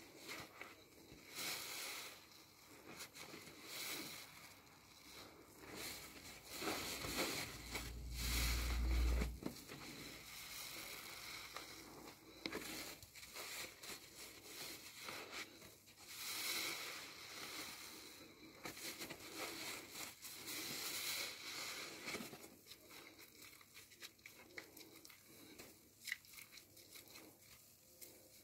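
A brand-new car sponge squeezed and kneaded by hand in thick cleaner lather: wet squelching and fizzy crackling of foam, swelling with each squeeze every couple of seconds. A deep low rumble runs from about seven and a half to nine and a half seconds in and is the loudest moment.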